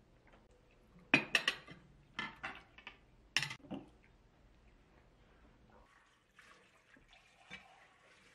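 Dishes and cutlery clinking and knocking in three quick clusters, the first the loudest, then a faint rush of tap water in the last couple of seconds.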